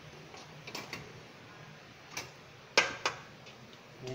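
Screwdriver and small metal parts inside a rice cooker's base clicking and tapping irregularly, with a louder knock a little under three seconds in as the cooker is handled.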